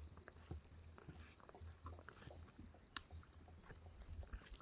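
Faint eating sounds: quiet chewing with scattered small clicks, one sharper click about three seconds in, over a low rumble.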